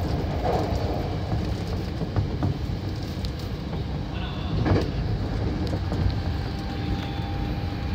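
Hankyu 7000 series electric train running at speed, heard from inside the leading car: a steady low rumble of wheels on the rails, with faint clicks and one louder knock a little past halfway.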